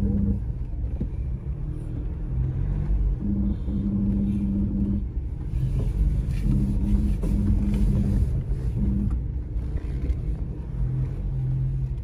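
Four-wheel drive driving: a low steady drone that cuts in and out several times over a continuous low rumble.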